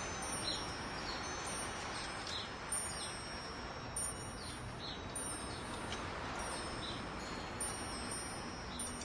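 Wind chimes ringing, with several long high tones that keep ringing and fade in and out, over a steady hiss.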